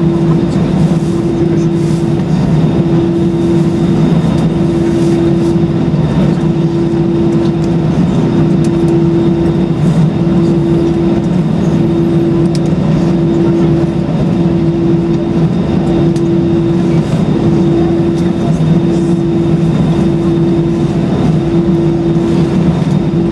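Airbus A320 cabin noise on the ground: a steady rumble of the idling engines and cabin air, with a hum that pulses about once a second.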